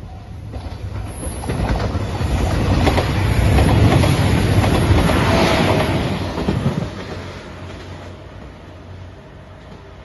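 JR Shikoku 2700-series diesel express train passing close by at speed: the rumble and clatter of wheels over rail joints build from about a second in, are loudest around the middle, and fade after about seven seconds as it runs off. A level-crossing bell rings faintly at the start.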